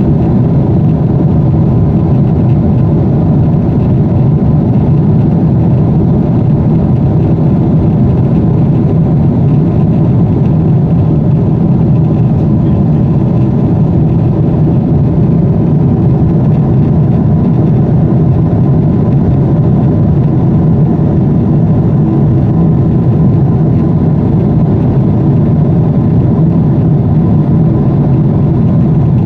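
Steady cabin noise of a jet airliner in flight: an even, low engine and airflow rumble heard from inside the cabin at a window seat, with a faint steady hum above it.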